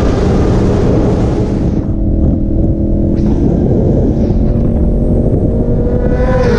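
Sport bike engines running at highway speed under heavy wind rumble on the microphone. Near the end an approaching superbike's engine note rises and then drops in pitch as it flies past.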